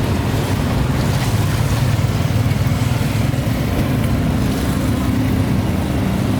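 An engine running steadily at a low, even hum, with roadside traffic noise.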